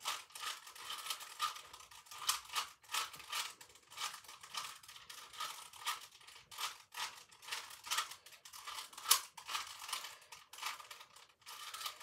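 Plastic Rubik's cube being twisted over and over as it is scrambled: a continuous run of irregular clicks and rasps from the layers turning.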